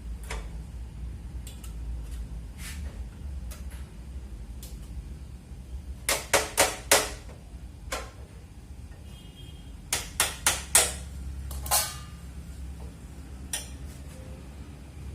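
Sharp knocks and clicks from hand-tool work on a cup-sealing machine: a quick run of four about six seconds in, another run of four near ten seconds, and lighter scattered clicks, over a low steady hum.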